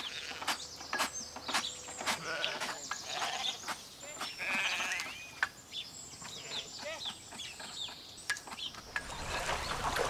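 A mixed flock of sheep and goats bleating as it is herded, with scattered sharp clicks among the calls. Near the end it gives way to a steady wash of lake water.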